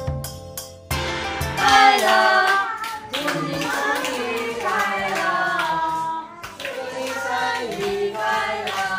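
Background music for about the first second, then a group of adults and young children singing a birthday song while clapping in time.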